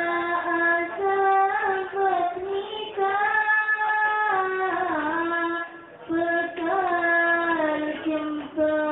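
Young female voices singing a sholawat, an Islamic devotional song, in long held notes that glide gently between pitches, with a short break about six seconds in and another near the end.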